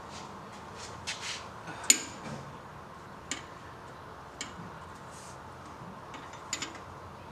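Light metallic clinks and taps of hand tools, a handful of sharp clicks spread over several seconds with a brief rustle near the start, as a rear brake bleeder is worked on.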